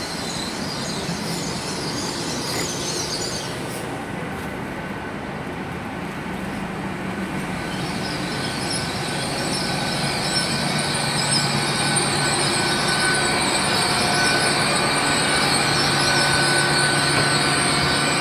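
Great Western Railway Class 800 bi-mode train pulling into the platform, a steady running hum with a high-pitched wheel and brake squeal that sets in strongly about eight seconds in and grows louder as it slows.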